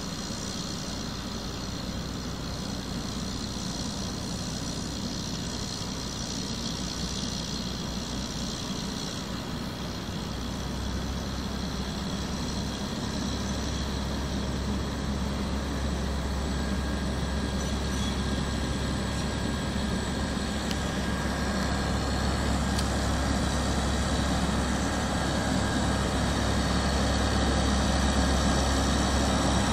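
Diesel shunting locomotive's engine running with a steady low hum as it approaches slowly, growing steadily louder.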